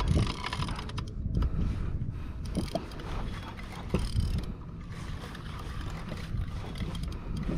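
Wind buffeting the microphone and water washing against a kayak hull, with scattered clicks and ticks from a saltwater fishing reel as the angler works a hooked fish on a bent rod.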